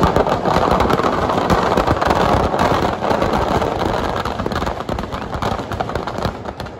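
Firecrackers stuffed in a burning Ravan effigy going off in a dense, continuous crackle of rapid bangs, easing slightly near the end.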